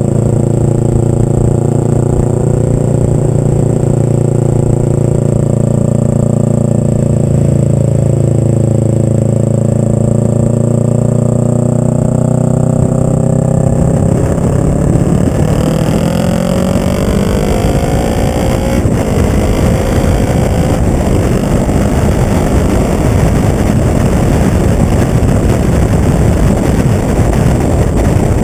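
Kawasaki ER-5's parallel-twin engine through a short Delkevic slip-on exhaust, loud, running steadily on a light throttle and then accelerating hard, its pitch rising twice as it pulls through the gears. Wind rush on the microphone builds as the speed rises.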